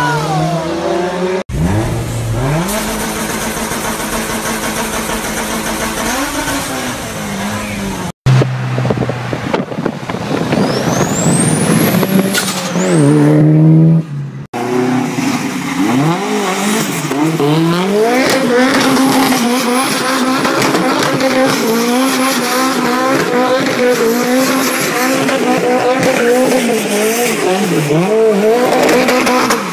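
Mitsubishi Lancer Evolution turbocharged four-cylinder engines revving hard in several clips in a row, with sudden cuts between them. In the longest, last part an Evo is held at high revs during a burnout, its engine note wavering up and down.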